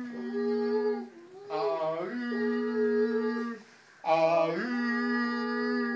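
Horn-like calls made by a man with his hand at his mouth: three long calls, each a short low note stepping up to a long held higher note, with short breaks between them.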